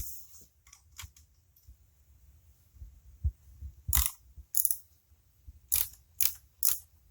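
Sharp metallic clicks and clinks of hand tools and engine hardware being handled, one loud click about four seconds in and a quick run of three near the end.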